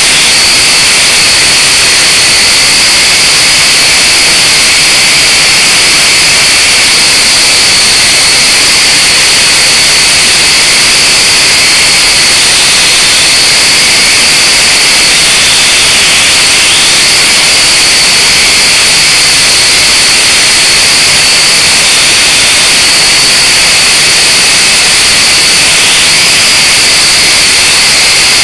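Blade 180QX micro quadcopter's four motors and propellers, heard through the camera it carries: a loud, steady high whine over hiss. The pitch wavers slightly a few times.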